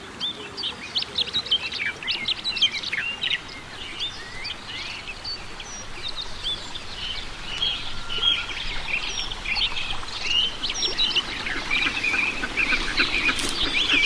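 A dense chorus of birds calling: many short, high chirps and whistles overlapping, growing a little busier and louder in the second half.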